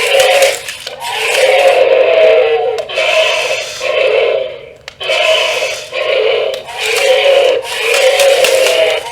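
Remote-control velociraptor toy's built-in speaker playing its dinosaur roar sound effects: a run of calls about a second long each, one after another with short breaks.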